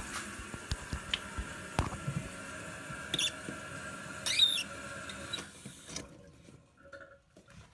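Kohler toilet's tank refilling through the fill valve, a steady hiss of running water that dies away about six seconds in as the supply stop valve is turned shut. A few clicks and two short squeaks come from the valve being handled along the way.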